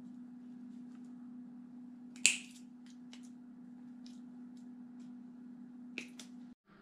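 Small clicks of work on a multi-wire harness connector with a small hand tool. One sharp click about two seconds in and another near the end stand out over a steady low hum.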